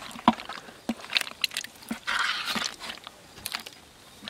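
Wet squelching and scattered clicks of mud-covered fish being handled and shifting against each other in a plastic bucket, with a longer wet rustle about two seconds in.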